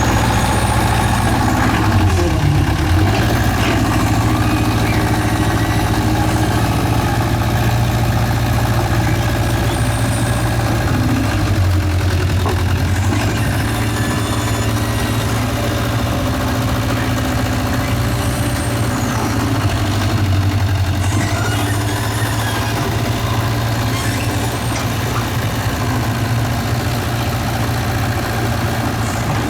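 Excavator's diesel engine running steadily, with its pitch shifting slightly a few times as it works.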